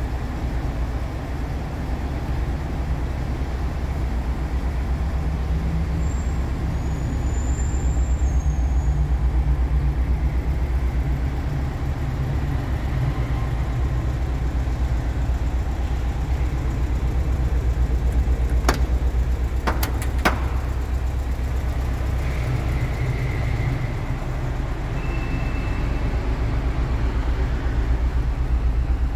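Volkswagen Type 2 Bus engine idling steadily, a low even rumble. A few sharp clicks come about two-thirds of the way through.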